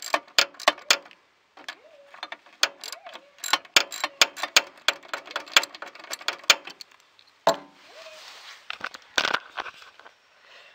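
A hand tool working at a bolt in a mower's engine bay, clicking and knocking on metal in a run of sharp, irregular clicks. Near the end there is a single knock, then scraping and rustling.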